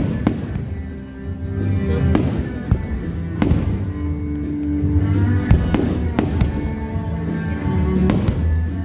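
Fireworks bursting in sharp bangs every second or two, over loud music with a steady bass line.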